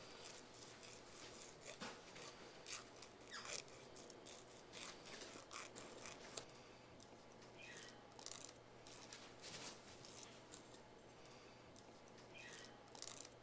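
Emery board filing a white-faced capuchin monkey's fingernails: faint, short scratchy strokes at an irregular pace.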